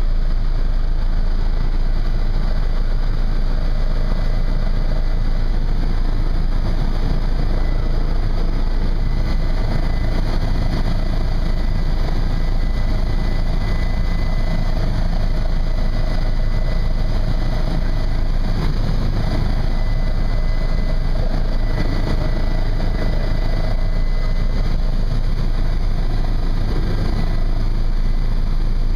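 Helicopter in flight heard from inside the cabin: a loud, steady drone of engine and rotor, with a faint high whine held over it.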